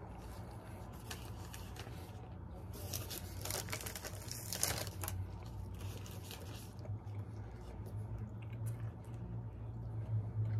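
Close-miked chewing and wet mouth sounds of a bacon cheeseburger being eaten. A paper burger wrapper crackles and rustles about three to five seconds in. A steady low hum runs underneath.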